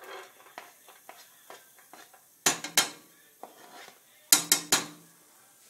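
A knife and cutting board scraping diced onion into a metal cooking pot: light scrapes and ticks, then sharp knocks against the pot, twice near the middle and three times in quick succession near the end.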